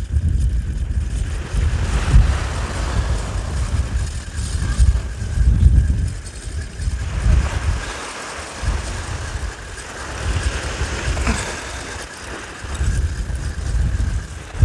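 Wind buffeting the microphone in uneven gusts of low rumble, over a steady hiss of the sea.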